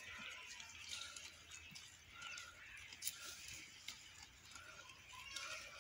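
Two goats browsing on a leafy branch: faint rustling of leaves with scattered small snaps and crunches as they tear off and chew the leaves. Short faint chirps can be heard in the background.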